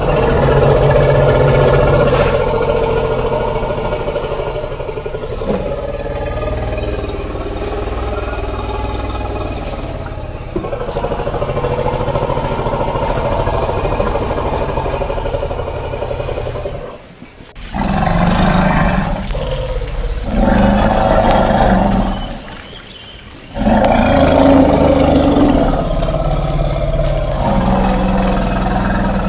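Elephant calls: long, low, steady calls, then, after a switch to another recording about two-thirds of the way through, a series of separate loud calls, each a couple of seconds long, with short pauses between them.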